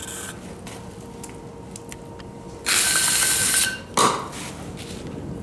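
Potter's wheel humming steadily, then a loud scrape of about a second as a metal tool works the clay at the foot of the pot on the wheel head, followed by a single knock; the hum stops at the scrape.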